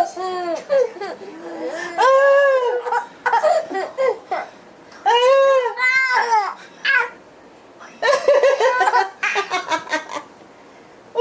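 A baby's high-pitched squeals and laughing cries in several bursts, each arching up and down in pitch, with a run of quick chuckling pulses near the end.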